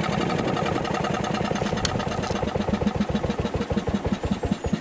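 Fairmont M19 section car's single-cylinder two-stroke engine idling with a slow, even putt-putt of firing beats. A single light click comes about two seconds in.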